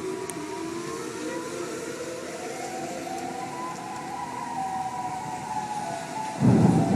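Outdoor tornado warning siren wailing, its pitch rising slowly over the first few seconds and then holding. A sudden loud low rumble starts near the end.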